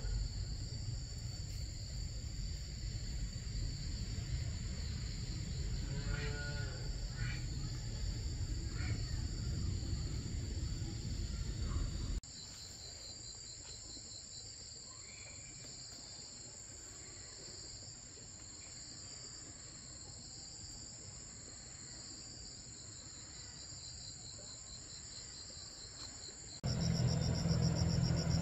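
Insects chirping steadily in high, pulsing tones, over a low rumble that cuts off abruptly about twelve seconds in and returns near the end. A few short animal calls are heard around six to nine seconds in.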